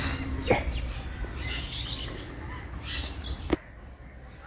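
Birds chirping and calling, with two brief knocks: one about half a second in and a louder one past three seconds in, after which everything drops much quieter.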